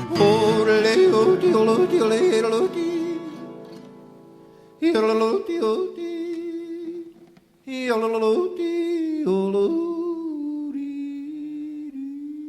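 Male cowboy singer yodeling over acoustic guitar: a yodeled phrase, then three short yodels that flip sharply between low and high pitch, the last settling into a long held note.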